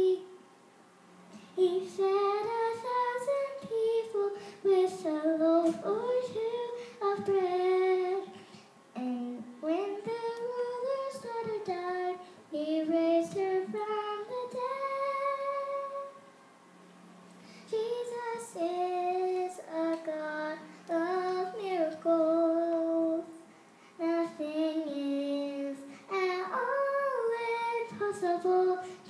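A young girl singing solo: sustained, gliding notes in phrases, with short pauses for breath between them.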